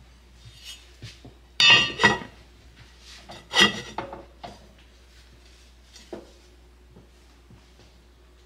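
Heavy enamelled cast-iron lid being set onto a Dutch oven: two ringing clanks about a second and a half in, a third loud clank a second and a half later, then a few softer knocks and a small click.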